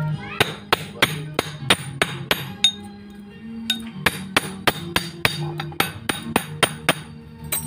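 Hand hammer striking a steel punch on a monel ring piece: quick, ringing metallic taps about three or four a second, with a pause of about a second partway through. Background music plays underneath.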